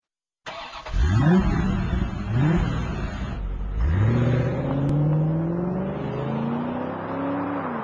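An engine revving, with two quick rises in pitch in the first few seconds. From about four seconds in comes a long run that climbs in pitch in several steps, as when accelerating, and it falls away near the end.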